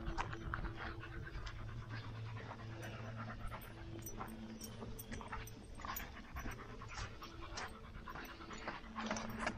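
Steady panting, with footsteps striking the trail.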